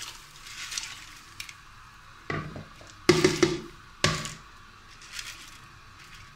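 Black lentils tipped from a bowl into boiling masala in a pressure cooker: a few sudden splashes and knocks, loudest about three and four seconds in, over a low simmer.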